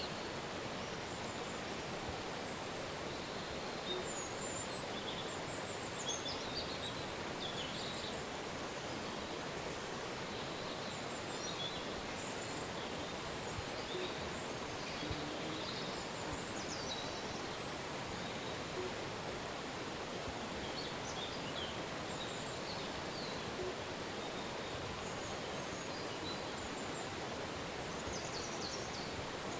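A river running steadily, with short, high bird chirps scattered over it.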